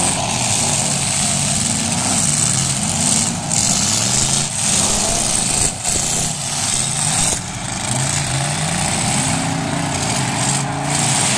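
Several demolition derby cars' engines revving hard, their pitch rising and falling over and over as they accelerate and back off.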